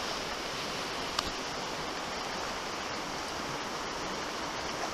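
Steady rush of flowing river water, with a single faint click about a second in.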